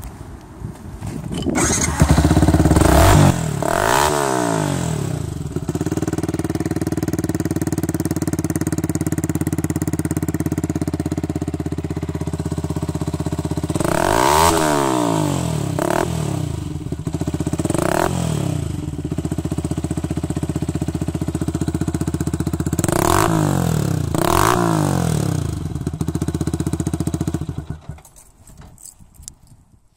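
Yamaha YZF-R125's single-cylinder 125 cc four-stroke engine, breathing through a Scorpion exhaust with the dB killer removed, starts about two seconds in and idles. It is revved in short blips several times, dropping back to idle in between, and is shut off near the end.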